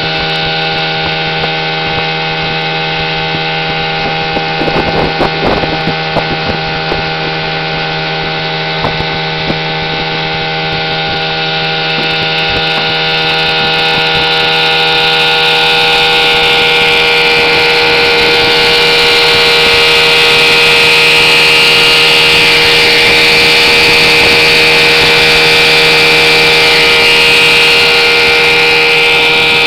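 1963 Johnson 5.5 hp Seahorse twin-cylinder two-stroke outboard running steadily under throttle as the boat cruises at speed. From about halfway through it grows louder with a rising hiss. A few brief knocks come about five seconds in.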